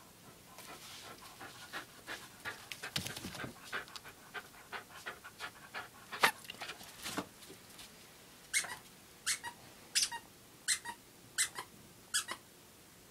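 A small terrier panting and tugging at a cloth toy held in a hand, with many short irregular noises, then about seven short sharp sounds, spaced a little under a second apart, in the last few seconds.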